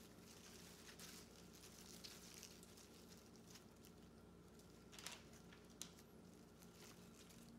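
Faint rustling and crinkling of leaves and flower stems being handled as they are gathered into a hand-tied bouquet, with a couple of light clicks about five seconds in.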